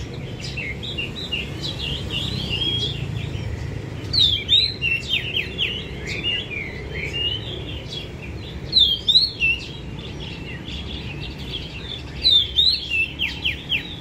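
Several caged songbirds singing and chirping together in quick, high, warbling phrases, with louder bursts of song about four, nine and twelve seconds in. One lead bird is setting off the male birds in the surrounding cages to sing.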